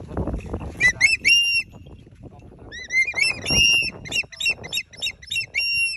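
A tame raptor perched on a handler's glove calls in high whistles, each note rising and then held. Two come about a second in, then a longer run of calls with a quick series of short notes, ending on one held whistle. Low rustling bursts come near the start and again about three and a half seconds in.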